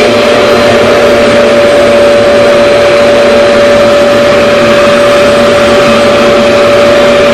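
RevAir reverse-air (vacuum) hair dryer running steadily, its motor whining at one constant pitch over a loud rush of air as it draws a section of hair through its tube to dry and straighten it.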